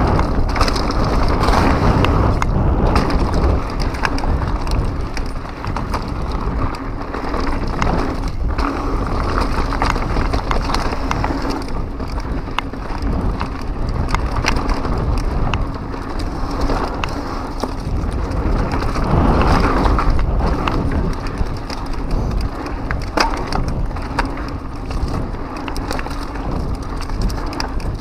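2015 Pivot Mach 6 full-suspension mountain bike descending a dirt trail at speed: tyres rumbling over loose, rough ground, with a constant clatter of sharp clicks and knocks from the chain and frame.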